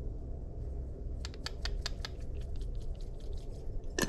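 Cayenne pepper shaken out of a spice bottle over a bowl of seasoned flour: a run of quick, irregular light clicks and taps starting about a second in, over a low steady hum.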